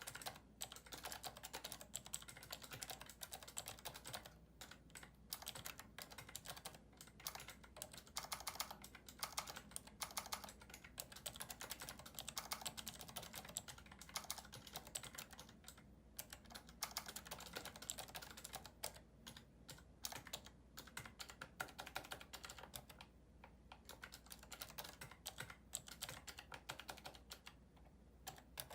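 Fast typing on a prototype keyboard with clicky Cherry MX Blue key switches: a dense run of key clicks broken by a couple of short pauses.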